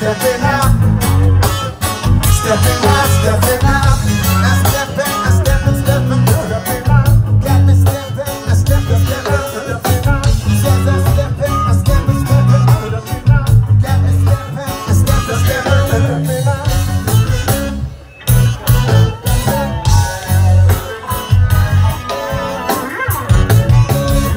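Live reggae band playing through a loud PA, with heavy bass, a steady drum beat, guitar and a singer. The music drops out for a moment about three-quarters of the way through, then comes back.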